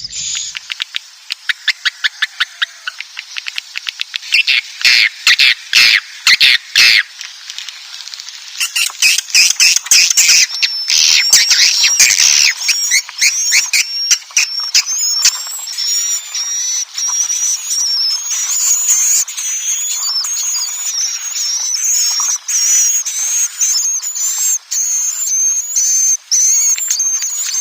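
Swiftlet roosting call ('inap' call), the recorded twittering played in swiftlet houses to draw swiftlets in to roost: trains of rapid clicking chirps for the first several seconds, then a dense, high, wavering twitter that runs on unbroken.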